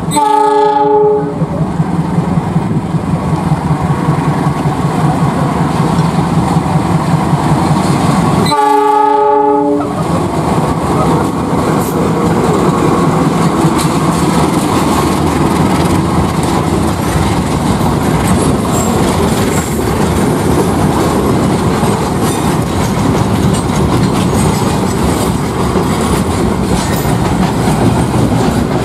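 KAI CC206 diesel locomotive sounding two horn blasts of about a second each, one at the start and one about eight seconds later, as it passes at the head of a container freight train. Its engine runs under load for the first ten seconds, then the steady rumble and clatter of the container flat wagons rolling by takes over.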